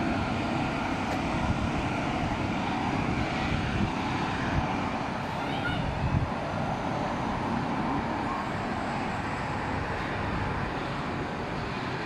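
Steady outdoor urban background noise: a low, even rumble like distant traffic, with no clear single event.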